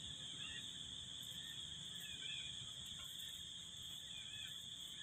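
Insects droning steadily at two high pitches, with a few faint short chirps.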